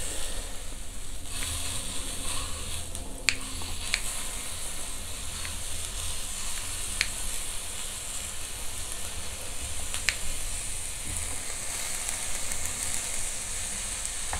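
Beef top blade steak sizzling on a small tabletop grill, a steady hiss, with about five sharp clicks from the kitchen scissors and tongs as the steak is cut into pieces.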